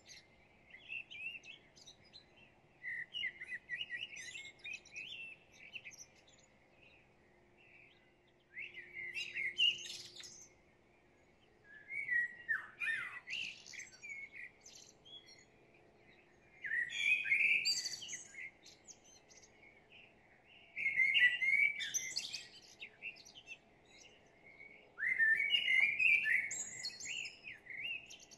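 A songbird singing: twittering, warbling phrases one to three seconds long, repeated every few seconds with short pauses between.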